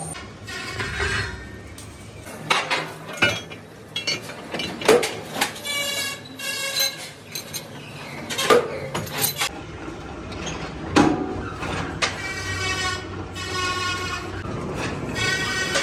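Steel truck rim plate clanking and ringing as it is handled and clamped into a lathe chuck: a string of sharp metal knocks, several followed by a ringing tone. A steady machine hum comes in about two-thirds of the way through.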